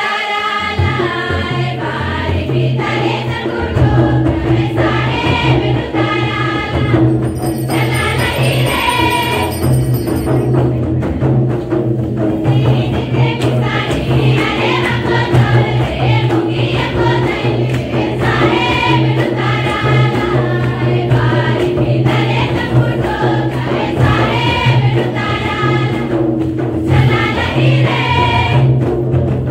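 Group singing of a Karam dance folk song, with drums and a steady low drone underneath; the voices come in phrases, over and over.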